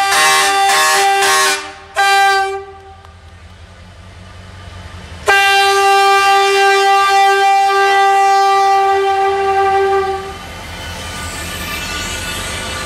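Diesel locomotive's horn sounding in loud blasts: one already sounding at the start that stops after about a second and a half, a short toot about two seconds in, then one long steady blast of about five seconds. After the last blast comes the low, growing rumble of the locomotive rolling past close by.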